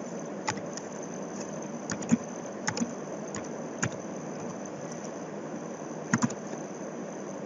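Computer mouse clicking a handful of times, some single clicks and some quick double clicks, over a steady hiss of fan or air-conditioning noise.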